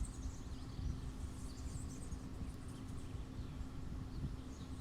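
Outdoor ambience: a steady low rumble of wind on the microphone, with faint, high bird chirps now and then.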